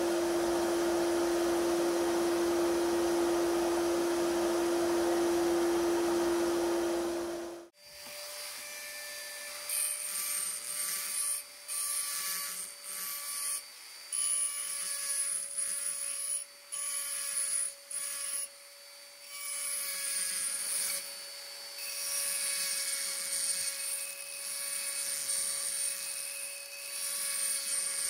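Sandblaster hissing steadily with a low hum for several seconds, then cutting off abruptly. After that a small handheld rotary tool whines steadily while its abrasive stone grinds against the metal of the grinder housing in short on-and-off scratchy spells.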